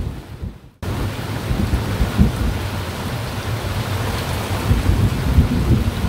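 Heavy tropical rain pouring onto open swamp water and the boat: a dense, steady hiss with irregular low rumbling underneath. It cuts in suddenly just under a second in, after a brief silence.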